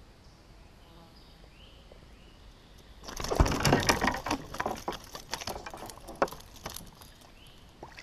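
A freshly caught snakehead thrashing against the kayak hull and in the water. It starts about three seconds in as a rapid clatter of knocks and splashes, loudest at first, then tails off over about four seconds.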